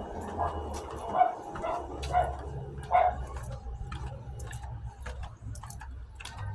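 Dog giving about five short barks or yips in the first three seconds, then quieter.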